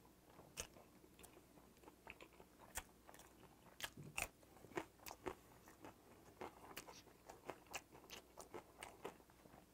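A man biting into and chewing a raw green chili pepper: faint, irregular crunchy bites and chewing clicks, the loudest about four seconds in.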